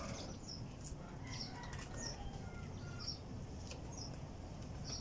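A small bird chirping: short high chirps about once a second over a steady low background rumble.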